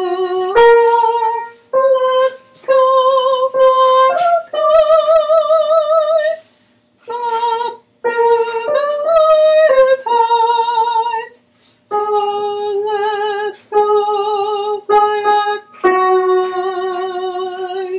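A woman's voice singing an alto choral line: a phrase of held notes, most lasting one to two seconds, with a clear vibrato and short breaths between them, the pitch stepping up and down.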